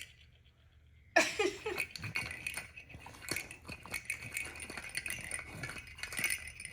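Jingling cat toy with a small ball inside, rattling and clinking as a dog plays with it; after a brief lull it starts suddenly about a second in and keeps jingling in quick irregular clinks.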